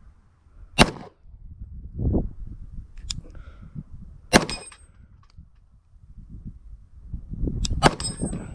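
Three pistol shots from a Glock G20 firing .40 S&W through a conversion barrel, about three and a half seconds apart. The second and third are each followed by a short, high ring of steel flipper targets being hit. Wind buffets the microphone underneath.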